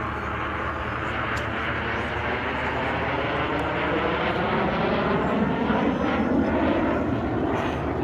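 Airshow airplane flying past, its engine noise swelling to loudest about six seconds in, with a sweeping shift in tone as it passes.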